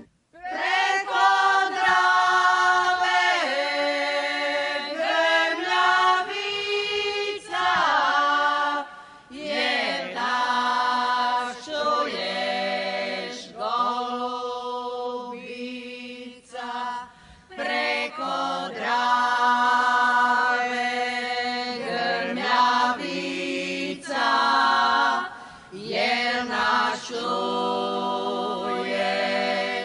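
Women's vocal group of eight singing a folk-style song a cappella, in sung phrases separated by short breaks.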